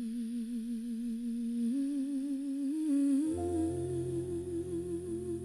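A voice humming a slow melody with a wide vibrato, stepping upward in pitch; about three seconds in, low held keyboard chords come in beneath it as the song's intro.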